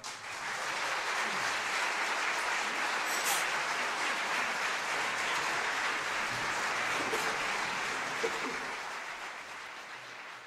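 Audience applauding, rising within the first second of the piece's final cutoff, holding steady, then fading out over the last couple of seconds.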